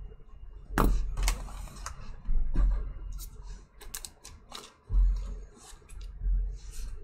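Trading card pack's clear plastic wrapper being torn open and crinkled, in a run of irregular crackles and sharp clicks, with dull knocks from handling on the table.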